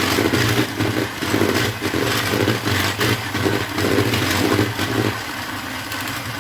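Electric hand mixer running, its beaters churning cream in a bowl with an uneven pulsing over a steady motor hum, as the cream is whipped toward thick. About five seconds in the churning drops away and the motor runs on more quietly.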